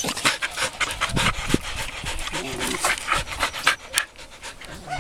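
A dog panting hard, with quick noisy breaths several times a second, close to the microphone.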